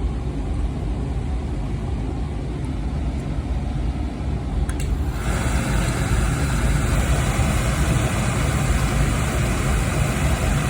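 Oil-fired boiler burner running with a steady low rumble; about five seconds in there is a click, and a louder steady hiss joins as a second burner starts up.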